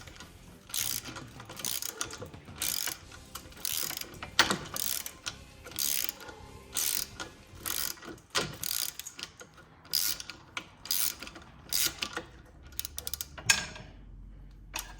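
Hand ratchet wrench clicking in short bursts, about two a second, as a freshly broken-loose nut is run off a bolt; the clicking stops near the end.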